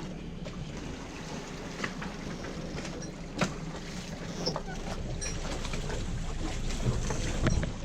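Sailing yacht's engine running steadily while under way, with wind and water noise and a few sharp knocks, the loudest about three and a half seconds in. The noise builds a little toward the end.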